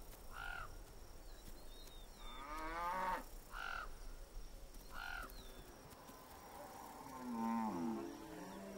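Cattle lowing faintly: a few long moos, falling in pitch, about two seconds in and again near the end, with shorter higher calls between them and small bird chirps.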